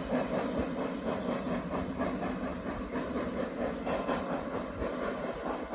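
A train running along the heritage railway line, heard as a steady, even rumble with no single event standing out.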